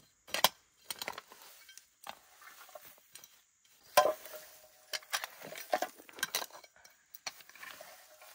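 Dry weeds and brush being pulled up and cleared by hand from stony ground: irregular crackling rustles of dry stems with sharp clicks of small stones and grit, the loudest clicks about half a second in and about four seconds in.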